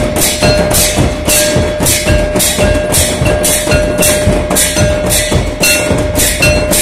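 Folk drums beating a steady, driving rhythm of about two to three strokes a second for a tribal welcome dance, with a steady high tone held underneath throughout.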